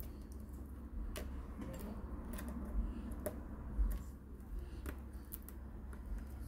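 Light, irregular clicks and ticks of metal tweezers and small metal parts against a laptop's plastic palmrest frame, about one a second, over a steady low hum.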